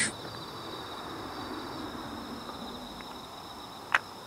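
Night insects trilling steadily, two high, even tones, over a low background hiss. One sharp click about four seconds in.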